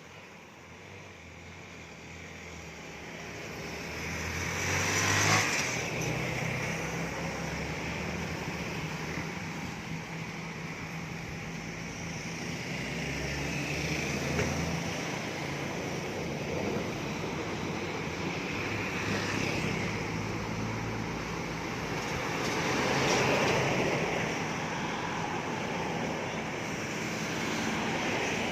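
Vehicle driving along a road: a steady low engine hum under road and traffic noise. Louder swells come about five, fourteen and twenty-three seconds in, as other traffic passes.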